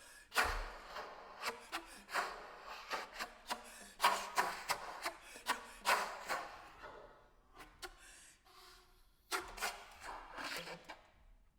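Solo saxophone played with extended techniques: irregular bursts of rasping, unpitched air noise and sharp clicks rather than notes, thinning out a little past the halfway point before one last flurry.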